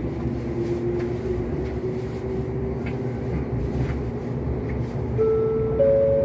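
Electric express train running, heard from inside the carriage: a steady rumble of wheels on rail with faint clicks over rail joints. Near the end a whine sets in that climbs in pitch in steps and grows louder.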